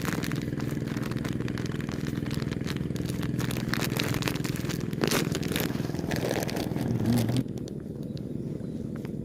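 An engine running steadily at an even pitch, with clicks and rattles over it, cutting off suddenly about seven seconds in.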